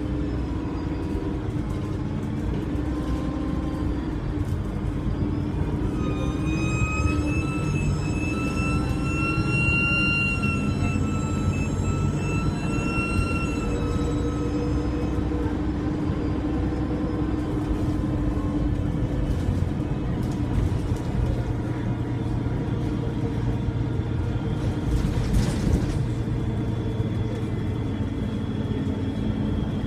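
Alexander Dennis E300 bus engine running under way, with a loud turbocharger whistle over the low engine rumble. The whistle rises in pitch about a quarter of the way in, holds, and fades about halfway through; a fainter high whistle comes back near the end.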